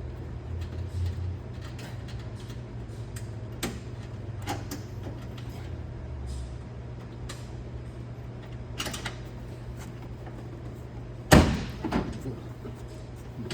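Polaris Ranger Crew dump bed and lockout pin being worked: scattered metal clicks, then one loud bang about eleven seconds in as the steel dump bed comes down onto its latch bracket, with a smaller knock just after.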